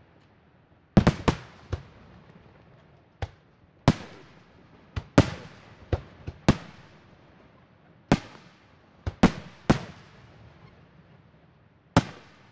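Aerial fireworks shells bursting: a string of about fifteen sharp bangs at irregular intervals, starting about a second in and often coming in quick pairs or triplets, each trailing off in an echoing rumble.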